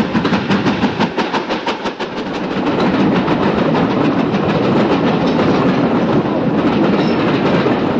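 Steam-hauled passenger train passing close beneath. A rapid, even beat sounds from the locomotive for the first couple of seconds, then the coaches roll by with a steady, louder rumble and wheel clatter.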